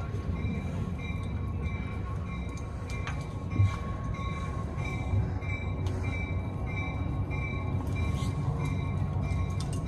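Steady low rumble of a passenger train heard from aboard a coach, with a faint high tone pulsing on and off. A single knock comes about three and a half seconds in.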